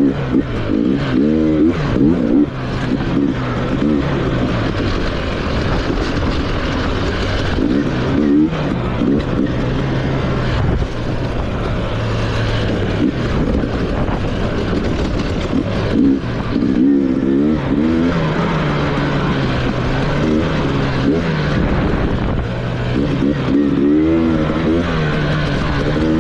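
Enduro motorcycle engine being ridden on a dirt trail, revving up and down over and over as the throttle is opened and closed, with quick rising and falling blips around two seconds in, about sixteen seconds in and near the end.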